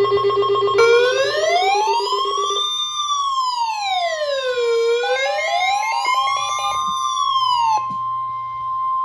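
Emergency alert tones: a steady high beep with rapid pulsing tones, joined about a second in by an electronic siren wail that rises and falls slowly, about once every four seconds. The wail stops about eight seconds in, leaving the steady beep on its own until the end.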